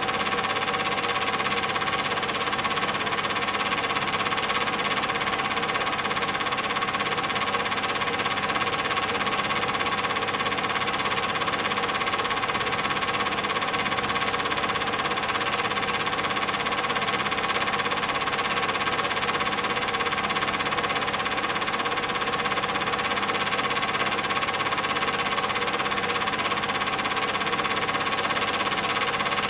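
Steady mechanical whirring and clatter of a running film projector, unchanging in pitch and level.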